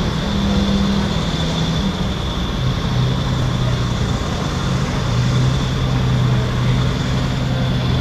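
Marine diesel engines of a fast attack craft running at low speed, a steady low drone with a thin high whine over it; the engine note drops about a third of the way through.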